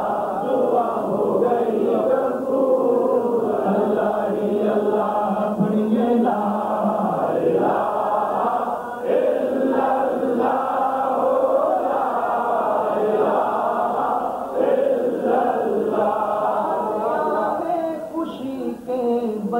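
Naat recitation: Urdu devotional singing in praise of the Prophet, with a male lead voice and a group of voices chanting together, continuous throughout.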